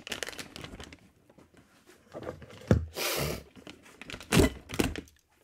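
Plastic wrapping crinkling and rustling as it is pulled off an aluminium pole, with a short tearing rip about three seconds in and a few light knocks.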